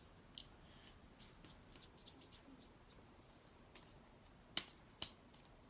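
Faint scattered small clicks and crackles of hands handling things on a table, with two sharper clicks about four and a half and five seconds in.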